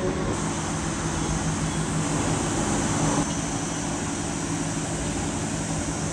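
Steady low drone of a large oil/chemical tanker's engines carrying across the water, with the last of its whistle blast fading at the very start.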